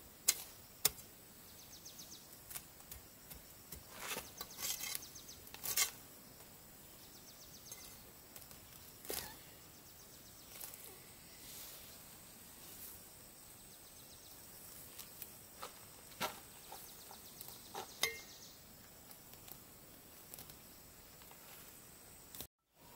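Outdoor forest sounds: scattered sharp clicks and snaps, with a few short insect-like trills over a faint, steady high tone and background hiss.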